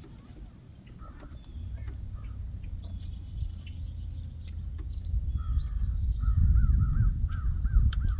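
A bird calling in a quick series of short, rising-and-falling notes, about three a second, starting about halfway through. Under it runs a low rumble that grows louder in the second half and is the loudest thing heard.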